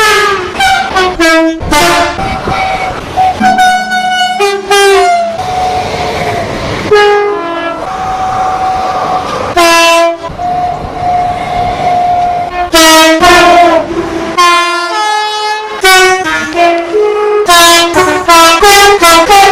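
A quick succession of train horn blasts of different pitches, cut one after another. Some blasts sound chords of several notes and others a single held tone, each lasting from a fraction of a second to about two seconds.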